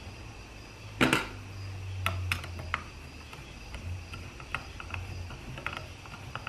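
Scattered light clicks and knocks of small metal parts and hand tools being handled while the solenoid body is fitted back onto a 47RE transmission valve body. The sharpest knock comes about a second in, with a low hum underneath.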